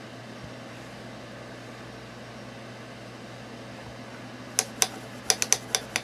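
Steady low background hum, then a quick run of about eight sharp, light clicks and taps in the last second and a half, from makeup tools being handled.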